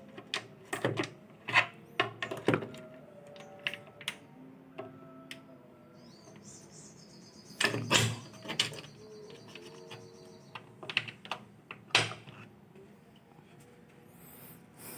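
Irregular clicks, taps and knocks of hands and tools working on washing-machine parts, a dozen or so separate strokes with a few louder knocks.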